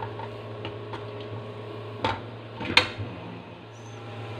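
Spatula stirring fried rice in a metal wok, with light scrapes and taps and two sharp clanks against the pan a couple of seconds in, over a steady low hum.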